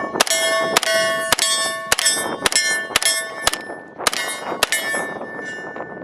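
HK USC .45 ACP carbine firing about ten shots at a steady pace of roughly two a second into steel targets, each hit making the steel plate clang and ring. The last ring hangs on briefly after the final shot.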